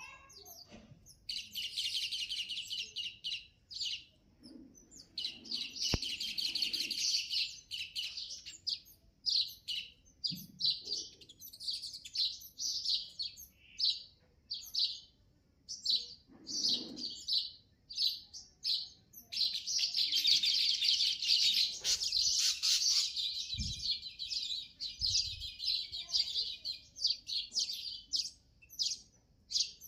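Small songbird at its nest chirping and twittering: fast high-pitched trills in long runs, broken up by short separate chirps.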